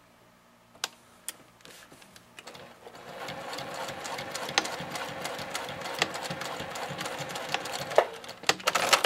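Juki sewing machine starting up after a couple of clicks and running steadily, stitching a row through silpoly tarp fabric and grosgrain webbing. A few sharp clicks come near the end as it stops.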